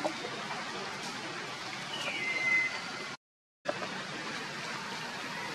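Steady hiss of rain, with a short high call that slides down and then holds briefly about two seconds in. The sound cuts out completely for under half a second just after three seconds.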